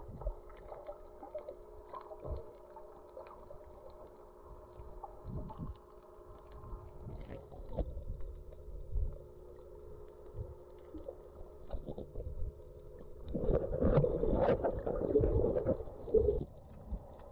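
Muffled underwater sound from a camera held below the surface: low knocks and water movement over a steady hum, with a louder, busier stretch of water noise for about three seconds near the end.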